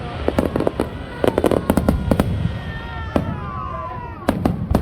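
Aerial fireworks going off: rapid crackling bursts for the first two seconds, then falling whistles, then two sharp bangs near the end, over a steady low rumble.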